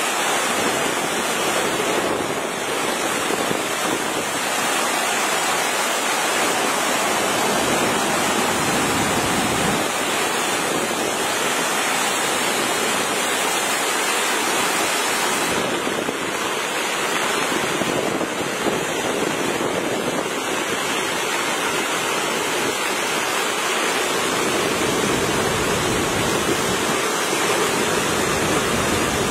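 Fast-flowing muddy floodwater rushing in a steady, loud torrent.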